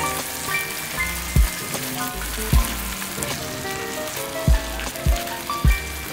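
Tomato-and-chicken sauce sizzling in a frying pan as it is stirred with a wooden spoon, under background music with drum hits and a bass line.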